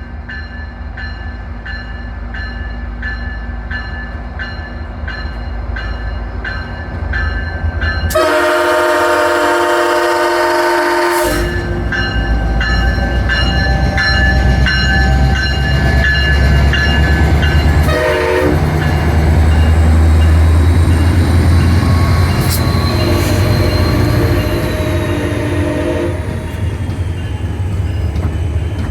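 MARC commuter train's diesel locomotive approaching with the low rumble of its engine growing louder and its bell clanging steadily. It then sounds its horn: a long blast about eight seconds in, a short toot around eighteen seconds, and another long blast a few seconds later.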